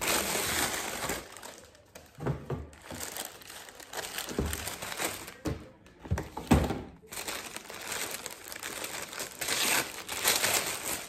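Clothing packaging being handled and unwrapped, crinkling irregularly for most of the stretch, with a few dull knocks in between.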